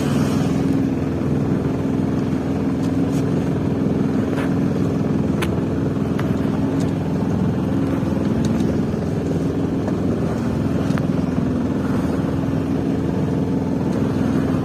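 A sailing boat's engine running steadily under way with an even, unchanging drone.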